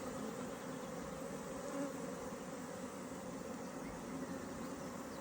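Honeybees buzzing in a steady, continuous hum.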